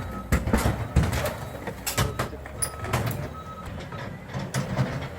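Skid steer's engine running steadily under load while material is broken up and scraped loose, with irregular sharp cracks and clatters of debris about once a second.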